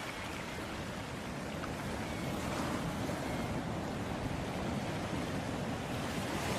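Ocean surf: a steady rush of waves washing onto a beach.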